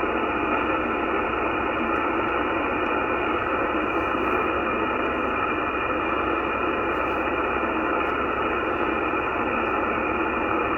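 CB radio receiver on the 11-meter band giving a steady hiss of static through its speaker, with no signal breaking through.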